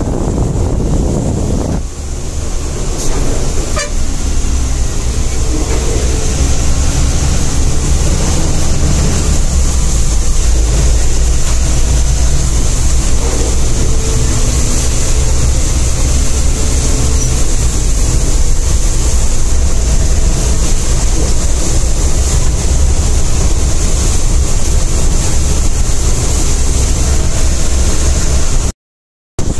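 A sleeper bus driving, heard from inside the cabin: a steady low engine and road rumble with a constant hiss over it, and a horn sounding faintly now and then. The sound cuts out for a moment near the end.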